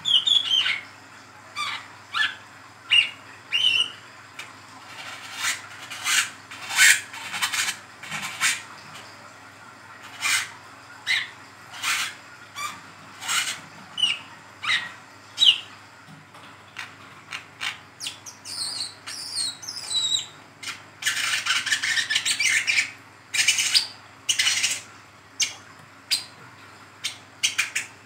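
Young brown-throated sunbird in speckled (trotol) plumage giving its chattering ngeriwik call: a string of short, sharp chirps and squeaky notes, thickening into a fast twittering run about three-quarters of the way through.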